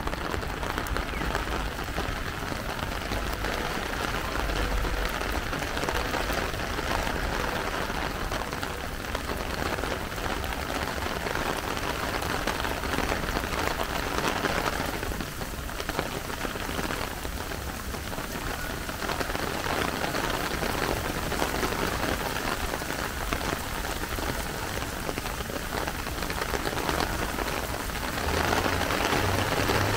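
Heavy rain falling steadily on wet pavement, an even, unbroken hiss of rain.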